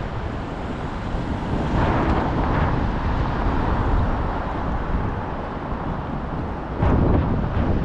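City street traffic noise, steady and strongest at the low end, with a sudden louder thump near the end.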